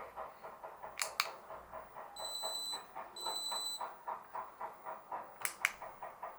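Retekess TD113 watch pager giving two short, high beeps about a second apart as test calls from paired call buttons come in. There are a few sharp clicks before and after them.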